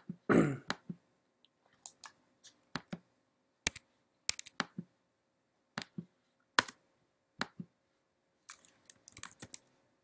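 Computer keyboard and mouse clicks: single sharp clicks spaced about half a second to a second apart, then a quick run of clicks near the end, as a screensaver that keeps interrupting is cleared. A short throat-clearing sound comes just after the start.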